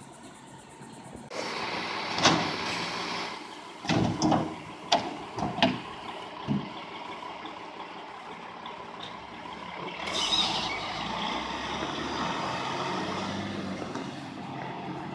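Labrie Top Select side-loading recycling truck at a curbside stop: a loud air hiss, a quick run of sharp bangs and clunks about four to six seconds in, and another air hiss about ten seconds in. The truck's engine runs steadily as it pulls away near the end.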